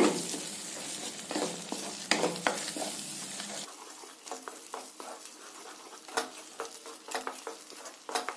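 Egg, onion and spices frying and sizzling in a nonstick frying pan while a wooden spatula stirs and scrapes them into scrambled egg, in short, irregular strokes.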